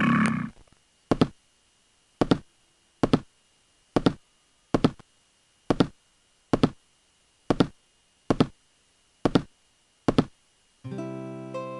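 A series of about eleven sharp knocks, each a quick double hit, coming roughly one a second with silence between them. Piano music begins near the end.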